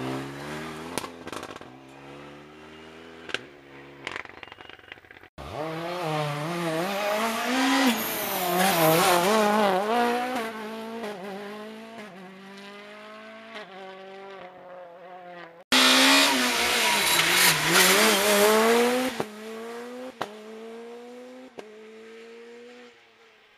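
Rally cars accelerating hard away one after another, first a Renault Mégane and then a Ford Fiesta. Each engine revs up through the gears, with a brief break and drop in pitch at each upshift. The sound cuts off abruptly twice between cars.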